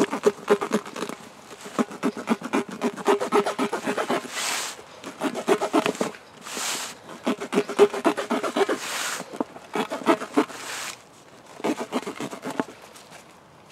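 The Kizlyar Kalibr combat dagger's blade sawing through a car tyre's rubber sidewall. It makes rapid rasping strokes with a squeaky drag, broken by a few brief hissing swishes. The blade goes through the rubber with no trouble.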